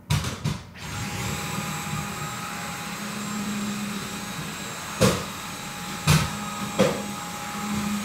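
Dyson vacuum cleaner switching on and running with a steady whine, with three short knocks about five, six and seven seconds in.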